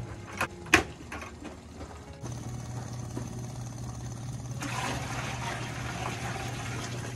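Two knocks as a plastic bucket is picked up, then the RO rig's small electric booster pump starts humming steadily with a thin high whine. Over the hum, maple sap is poured from one plastic bucket into another, splashing for a couple of seconds near the end.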